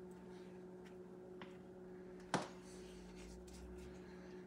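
Quiet room with a steady low hum and a few light taps, the clearest a little over two seconds in, as a pastry brush spreads softened butter over a turkey in a foil roasting pan.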